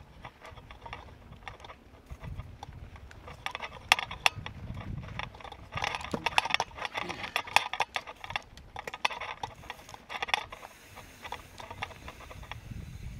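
Mountain bike rattling and clattering over rough rock: a dense run of sharp clicks, clanks and knocks from about three and a half seconds in to about ten seconds, over a low rumble.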